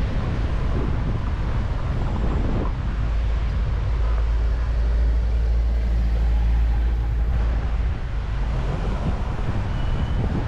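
Street traffic: cars and vans driving past close by. A deep engine rumble swells in the middle and fades about three-quarters of the way through as a minibus passes.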